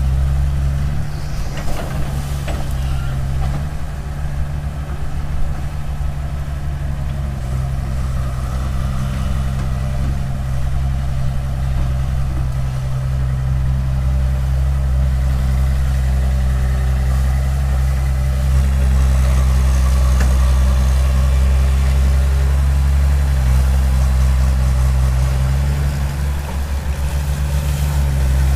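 Excavator's diesel engine running steadily with a low, even drone.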